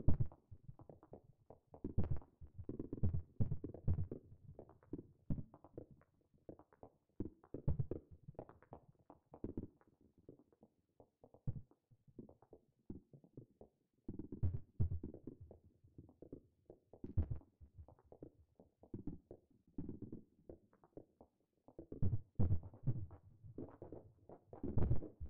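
Native Instruments PRISM, a modal and additive synthesizer, playing short, low, knocking percussive hits in an irregular pattern, in clusters broken by pauses of a second or two.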